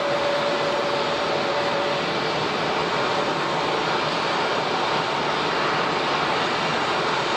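Passenger jet engines running, a steady rush of noise with a faint steady whine that ends about two seconds in.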